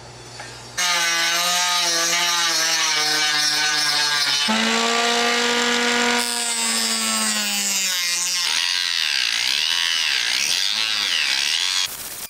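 Dremel bench saw's small blade cutting a small block, starting suddenly about a second in. The motor's whine sags slowly in pitch as the blade takes the cut, picks up again, and sags again, over a high rasp.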